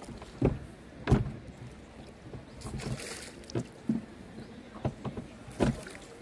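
Canoe paddling: a string of irregular knocks and splashes from the paddle strokes, with a short rush of water about three seconds in.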